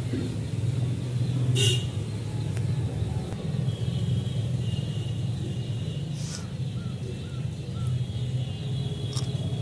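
A steady low rumble in the background, with a few sharp clicks as metal pipe fittings are fitted to a pressure washer pump head.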